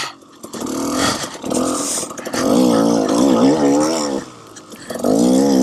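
KTM 300 XC-W two-stroke dirt bike engine revving up and down as the throttle is worked on rough trail. About four seconds in it drops back for under a second, then revs up again.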